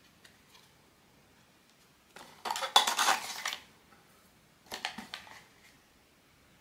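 Blind-box packaging being handled, crinkling and crackling in two bursts: a longer, louder one about two seconds in and a shorter one about a second later.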